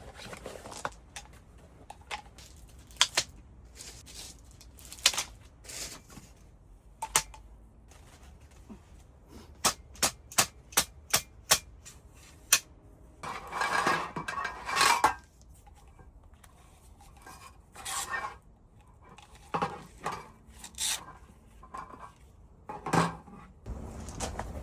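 Irregular sharp clinks and knocks of hard objects being handled, with a quick run of clicks about ten seconds in and a denser clattering stretch a few seconds later.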